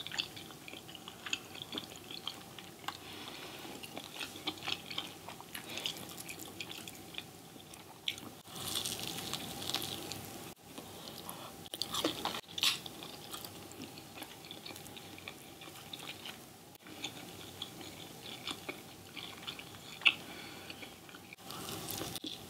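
Close-miked chewing and biting: wet mouth sounds of eating spaghetti and almond-flour fried cod, with many small clicks and smacks and a bite into a piece of the fried fish.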